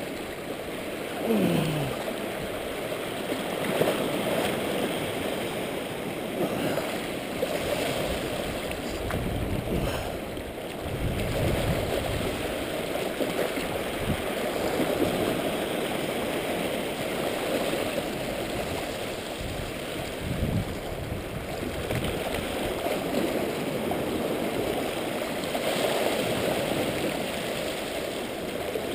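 Small waves washing and sloshing over shoreline rocks: a steady rush of water that swells and eases every few seconds.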